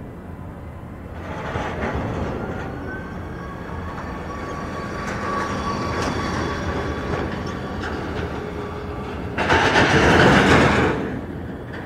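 Airport ground-service vehicle passing close by, its engine running with rattling and clatter, over a steady high whine from aircraft on the apron. A much louder rush of noise comes about nine and a half seconds in and lasts about a second and a half.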